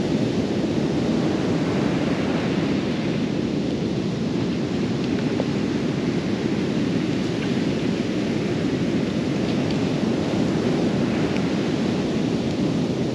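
Steady rush of ocean surf breaking on a beach, with wind.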